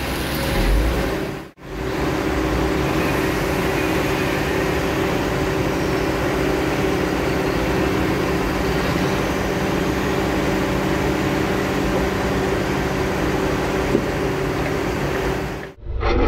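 Heavy diesel engine running steadily at an even speed, with a brief drop-out about a second and a half in.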